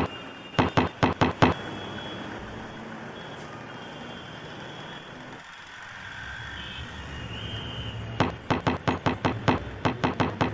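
A person banging on a closed flat door with open palms: a handful of hard bangs at the start, then a fast, frantic run of bangs, about five a second, from near the end. In between, a steady, quieter hiss.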